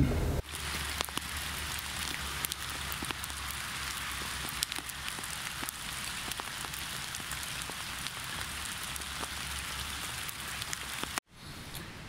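Steady rain falling, a fine hiss dotted with many small drop ticks over a low rumble; it cuts off suddenly near the end.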